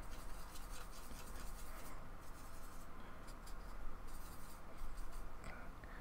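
Paintbrush bristles scratching and rubbing as gouache is mixed in a plastic palette and brushed onto paper: a soft, scratchy rubbing.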